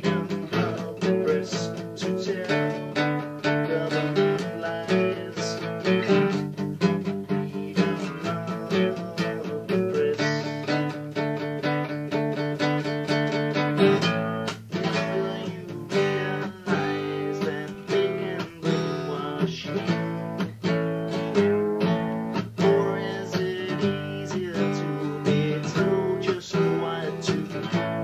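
Acoustic guitar strumming chords in a folk song, recorded on cassette tape.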